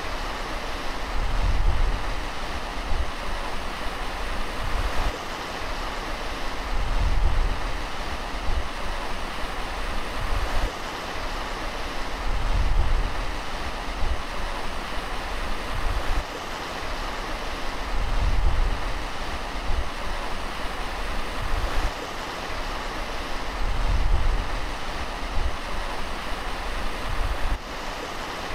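Handheld gas blowtorch burning with a steady hiss. Low gusts of wind buffet the microphone about every five to six seconds.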